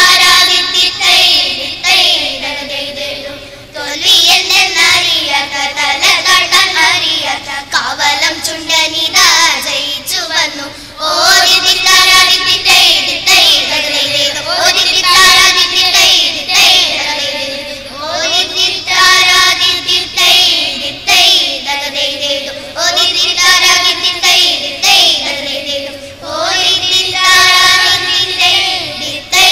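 A group of children singing a song together into stage microphones, in phrases a few seconds long with short breaks between them.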